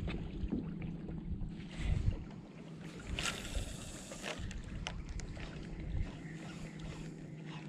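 A small boat's motor running steadily at low speed, a low hum with water and wind noise around it. A few light clicks are heard over it.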